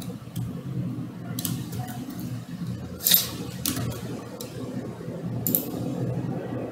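Rustling and scraping with several sharp clicks, the loudest about three seconds in.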